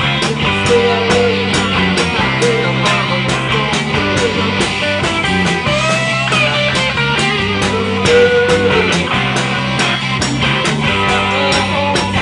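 Live rock band playing: electric guitars over bass and a drum kit, with a steady beat.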